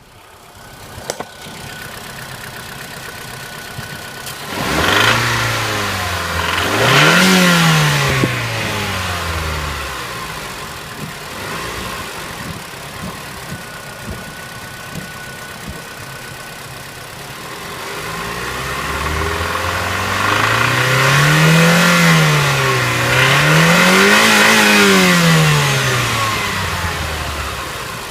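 Mitsubishi Outlander 2.4-litre engine idling and revved with the gas pedal: two quick revs about five seconds in, then two longer rises and falls near the end, each dropping back to idle. The owner hears a knock when the gas pedal is pressed sharply.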